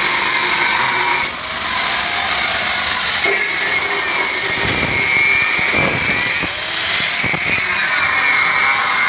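A handheld power tool running steadily with a high whine and hiss, briefly easing about a second in.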